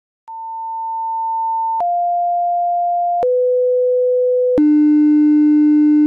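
Four pure sine tones played one after another, each lower and louder than the last: the 900, 700, 500 and 300 Hz odd harmonics of a 100 Hz square wave. Each tone is held about a second and a half, with a click at each change.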